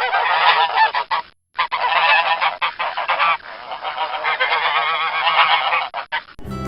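Geese honking, many calls overlapping, thin-sounding with no low end, with a short break about a second and a half in.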